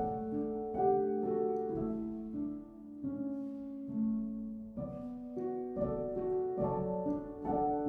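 Background music: a gentle piano melody of struck, held notes.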